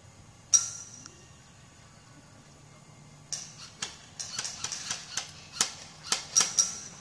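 Airsoft gunfire: one sharp crack about half a second in, then from about three seconds in a rapid, irregular run of sharp cracks and snaps.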